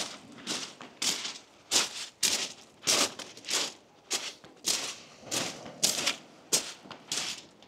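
Footsteps crunching on beach shingle, about two steps a second.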